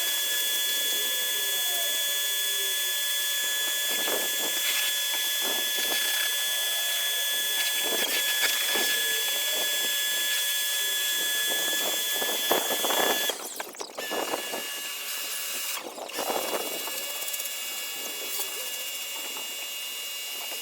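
Bosch electric pressure washer running, its motor and pump giving a steady high whine over the hiss of the spray. About thirteen seconds in the whine cuts out and breaks up, then carries on quieter.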